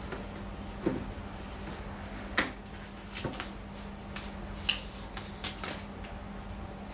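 Scattered sharp plastic clicks and knocks as a long plastic part from a Xerox WorkCentre 6605DN printer is handled on a table, about five spread over several seconds, over a low steady hum.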